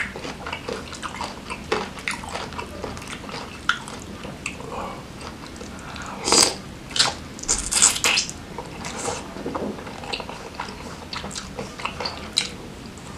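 Close-miked chewing and biting of grilled chicken with sambal: a steady run of small chewing clicks, with a cluster of louder bites and crunches about six to eight seconds in.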